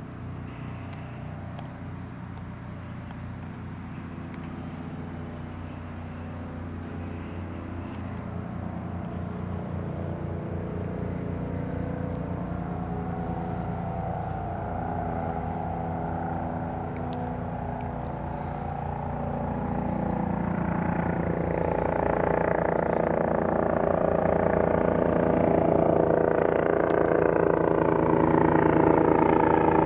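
Twin-engine rescue helicopter approaching, its rotor beat and engine sound growing steadily louder, most sharply over the last ten seconds.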